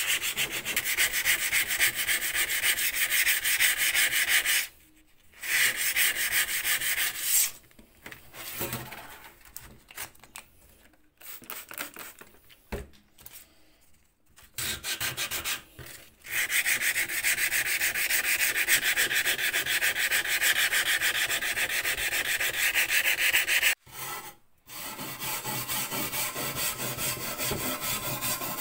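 Wet abrasive paper on a sanding block rubbed quickly back and forth over the painted metal of a post box, in long runs of rapid strokes, with a pause of several seconds in the middle.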